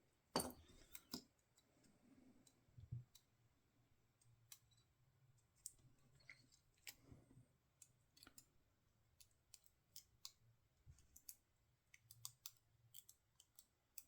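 Faint, irregular small metal clicks and scrapes as a thin steel shim is worked into a pin-tumbler padlock's core to push the pins out, with the lock body handled in the hand. The clicks come every half second or so, the sharpest about half a second in.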